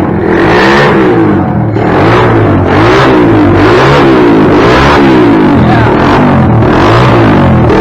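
125cc pit bike engine, fitted with a new 26mm Mikuni carburetor, being revved over and over, the pitch rising and falling about once a second. Someone nearby thinks it may need new piston rings.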